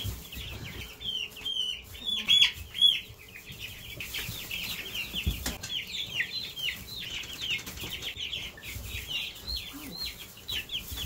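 A large brood of young chicks peeping, many high, short cheeps overlapping without pause. A dull knock sounds about five seconds in.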